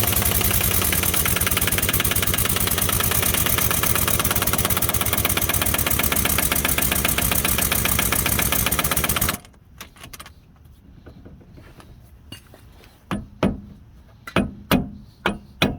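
Impact wrench hammering hard on the axle hub nut for about nine seconds, a fast, even rattle that stops abruptly. A few sharp metal clinks of tools and socket follow near the end.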